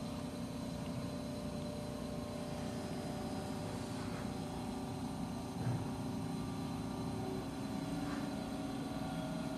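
A steady hum made of several steady tones over a low rumbling hiss, with a short thump about five and a half seconds in.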